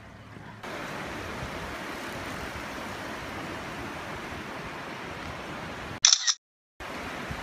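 Steady street noise with traffic, then about six seconds in a loud camera shutter click, followed by a brief dead silence.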